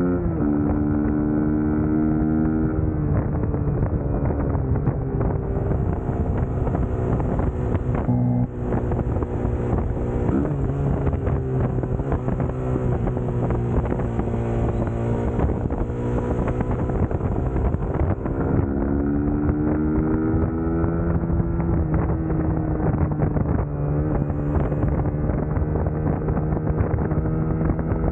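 Suzuki GSX-S150's 150 cc single-cylinder engine running under way, its pitch climbing under throttle and dropping back several times, with wind noise on the microphone.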